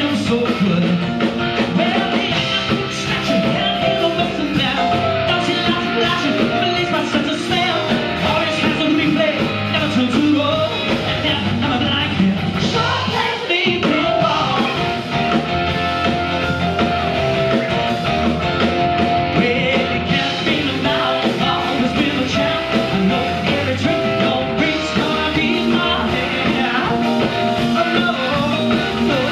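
Live rock band playing: piano and electric guitar with a male lead vocal, loud and continuous. The bass drops out briefly about halfway through.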